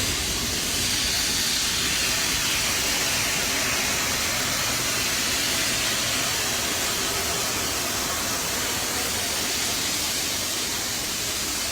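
A steady, loud hiss with no distinct events or tones.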